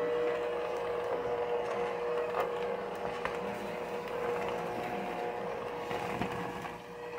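Electric hand mixer running steadily with a constant whine, its beaters working crumbled cake and a stick of butter in a plastic mixing bowl, with a couple of light knocks of the beaters against the bowl.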